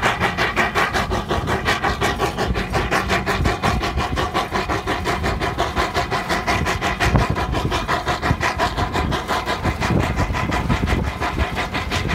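Steam locomotive working hard under way, its exhaust chuffing in a fast, even beat of about five chuffs a second.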